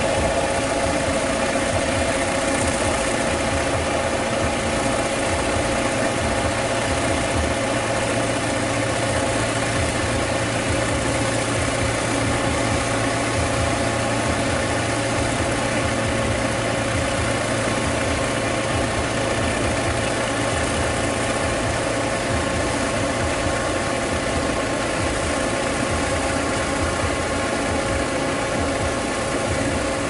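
A Shibaura SD 2200 tractor's engine runs steadily at an even speed. It is working under load, driving a ditching attachment that cuts a water channel through a flooded rice paddy.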